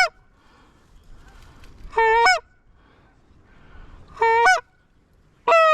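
Hand-blown goose call giving loud honks about every two seconds, each with a sharp break in pitch near its end, calling to an incoming goose.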